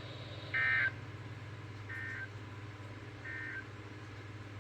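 Three short, buzzy EAS data bursts about a second and a half apart, the first loudest: the SAME end-of-message code that closes a weather-radio alert. A steady low hum runs underneath.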